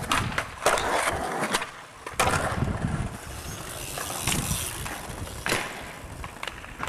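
Skateboard and BMX bike wheels rolling and scraping on concrete, broken by several sharp clacks and thuds of tricks and landings.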